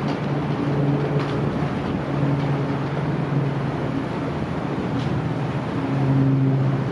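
Low hum of the car ferry Daiichi Kokusai Maru's diesel engines carrying across the harbour while it is under way, fading in and out three times, over steady wind noise.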